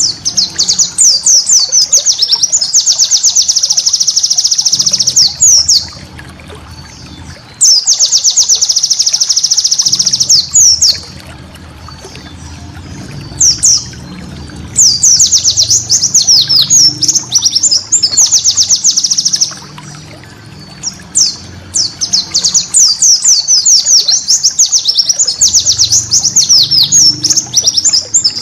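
White-eye (pleci) singing in long runs of rapid, high chirping notes, five runs broken by short pauses, over a faint low steady murmur.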